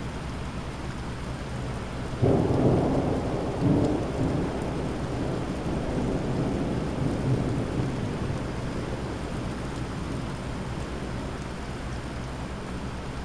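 Steady rain falling, with a thunderclap that breaks in suddenly about two seconds in. It rumbles on with a second peak a second later, then dies away over the next few seconds.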